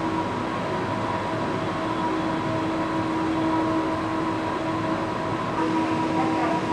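Heavy construction machinery running steadily: a continuous mechanical drone with several steady whining tones over it.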